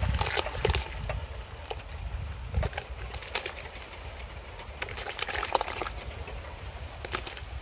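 Banana slices dropping off an enamel plate into a pot of hot coconut milk, a scatter of small plops and splashes in irregular clusters, with wind rumbling on the microphone now and then.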